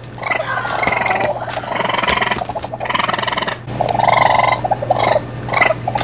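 Dubbed-in animal cries: a quick run of harsh, pitched calls, each under a second long, over a steady low hum.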